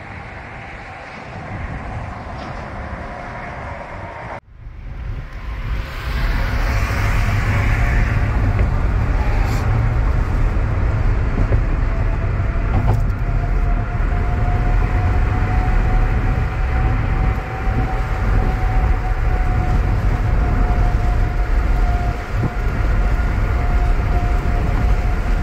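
A car driving over a highway bridge: steady tyre and wind noise with a heavy low rumble and a faint steady whine. About four seconds in, the noise cuts out for a moment and comes back much louder.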